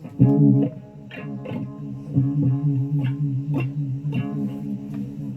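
Guitar played with a pick: a run of single notes struck about once or twice a second, each left ringing.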